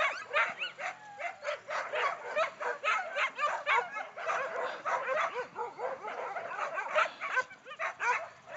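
A pack of harnessed sled huskies barking and yelping together, a dense overlapping chorus of short high calls, several a second, without a pause.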